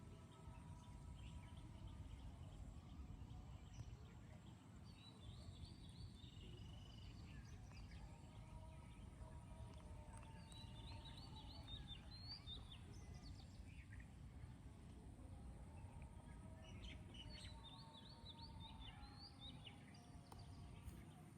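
Faint outdoor ambience with a low rumble, and birds chirping in quick high phrases that come three times, several seconds apart.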